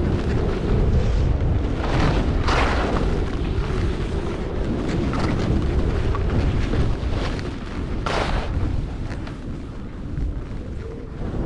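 Wind buffeting the action camera's microphone at speed, a steady low rumble, with edges scraping and hissing across packed snow in the turns, strongest about two and a half seconds in and again about eight seconds in.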